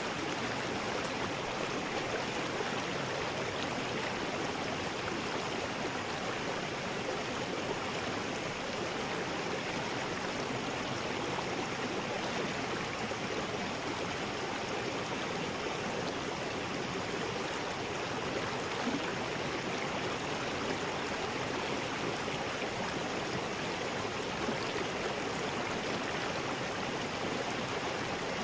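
River rapids: fast water rushing over rocks in a steady, unbroken roar.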